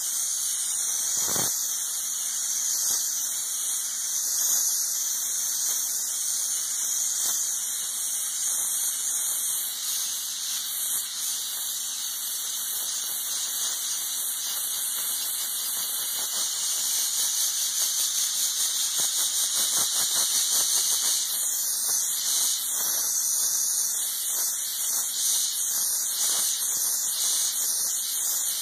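McCulloch MC1275 steam cleaner jetting steam through its floor nozzle onto ceramic tile: a steady, high-pitched hiss. In the second half the hiss flutters rapidly in loudness.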